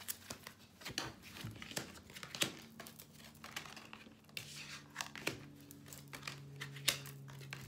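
Tarot cards being shuffled and handled: a run of quiet, irregular clicks and crinkly snaps.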